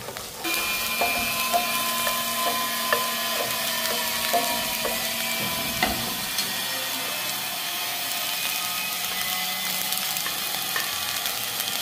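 Sliced onions sizzling in a stainless steel frying pan while a wooden spatula stirs and scrapes them, with a run of light taps of the spatula on the pan in the first half.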